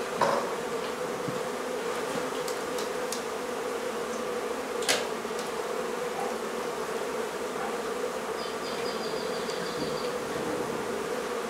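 Honey bee colony buzzing as a steady, dense drone, with a single sharp click about five seconds in.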